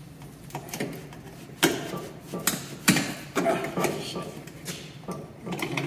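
Polished stainless-steel exhaust pipes clinking and knocking against each other and their clamps as the center muffler section is pushed onto the downpipes by hand: a handful of separate sharp metallic knocks over several seconds.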